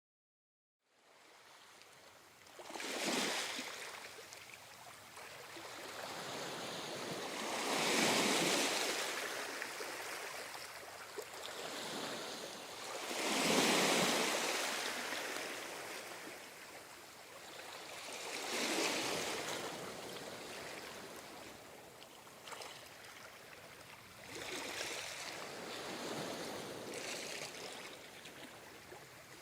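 Ocean waves breaking and washing up the shore, each surge swelling and fading about every five seconds.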